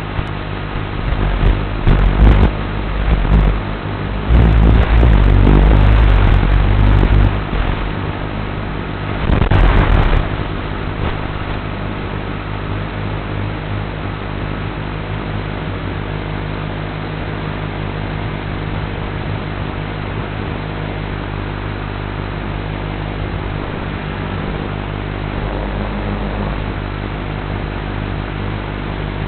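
Small FPV racing quadcopter's motors and propellers running in flight, a steady hum with a hissy edge, swelling louder three times in the first ten seconds or so.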